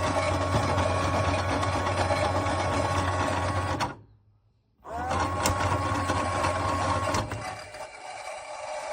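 Toy Miele washing machine (Theo Klein 6941) making its whirring wash-cycle sound, a steady motor-like hum with a tone that rises as it starts. It cuts off about four seconds in, starts again with the same rise about a second later, and stops about seven seconds in.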